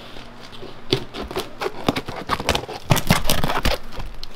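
A tape-wrapped cardboard box being cut and torn open, packing tape and cardboard crackling and scraping in a run of sharp clicks, loudest and densest about three seconds in.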